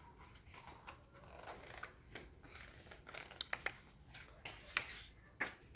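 A domestic cat purring softly, with several faint clicks.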